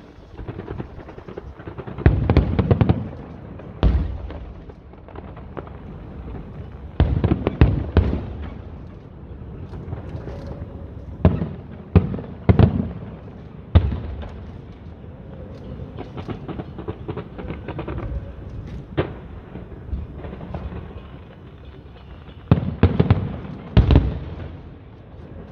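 Fireworks show: aerial shells bursting in clusters of sharp bangs and booms every few seconds, with a lower rumble and scattered pops between the volleys.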